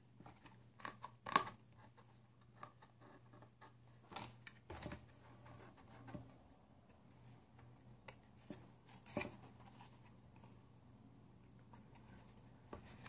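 Faint, scattered scrapes, taps and rustles of a cardboard Google Cardboard v2 VR viewer being folded and handled, with a few slightly sharper taps among them.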